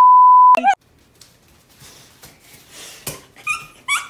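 A loud, steady, high test-tone beep, the kind played over TV colour bars, lasting about half a second and cutting off sharply. Near the end come short, high-pitched squeals of a girl laughing.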